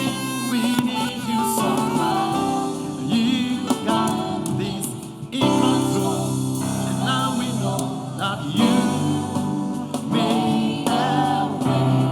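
Gospel worship music with singing over a band.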